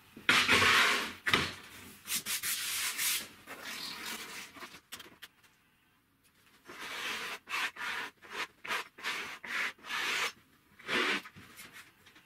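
Sheets of plywood sliding and scraping against each other as they are pushed across and laid on top of one another, in a series of rubbing strokes. After a short lull near the middle comes a quicker run of short rubs, about three a second.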